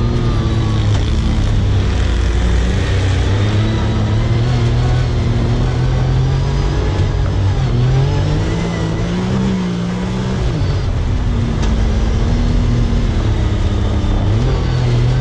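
Side-by-side UTV engine running under load while driving over sand dunes, with steady wind and drivetrain noise. The engine pitch rises about eight to nine seconds in, eases off briefly around ten seconds, then settles back to a steady pull.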